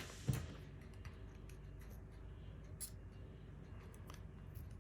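Faint scattered clicks and light scraping as the pipe and its fittings are handled and fitted into the collar, over a low steady hum.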